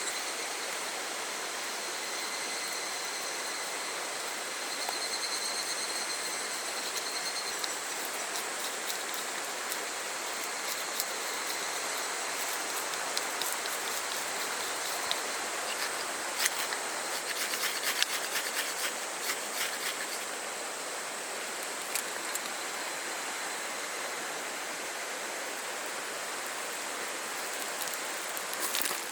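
Steady rushing of a small river's flowing water, an even hiss. A thin high tone sits over it for the first several seconds, and scattered sharp clicks and ticks come through the middle.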